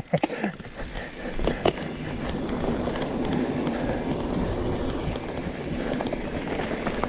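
Mountain bike rolling over an off-road trail: a steady rolling and rattling noise with a few small knocks, building up about a second in.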